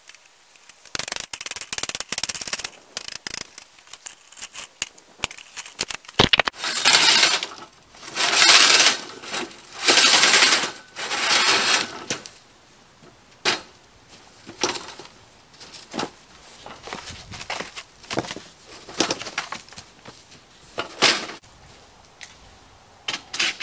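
Irregular clicks, knocks and scraping rustles of hands-on work with metal feed-line parts and of boots moving through wood-shavings litter, with a run of longer scraping rustles about a third of the way through.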